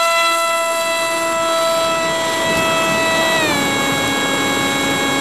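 FPV racing quadcopter's brushless motors and propellers whining in flight, heard from the quad's own camera. The steady pitched whine drops to a lower pitch about three and a half seconds in as the throttle is eased back.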